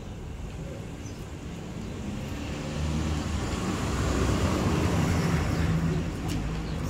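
Low engine rumble of a passing motor vehicle. It builds from about two and a half seconds in, is loudest around four to five seconds, then eases off.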